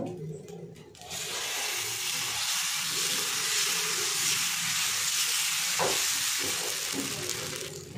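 Dosa batter sizzling on a hot tawa as it is poured and spread with a ladle. The sizzle starts about a second in, holds steady, and fades near the end, with one short knock of the ladle a little before that.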